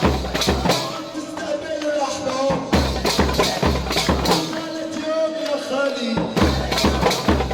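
Upbeat wedding party music with a heavy drum beat that comes in runs of hits and drops back for a second or so every few seconds, over a melody line.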